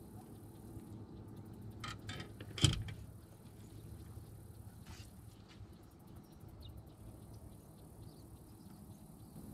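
A few clicks and one sharp knock, with a steady low hum underneath.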